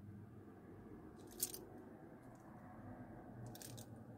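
Quiet handling of a beaded bracelet being fastened at the wrist: a sharp click about a second and a half in and a few softer clicks near the end, over faint room noise.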